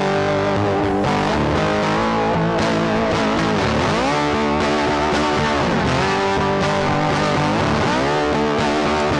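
Background music led by an electric guitar with distortion, its notes sliding down and back up in pitch a few times.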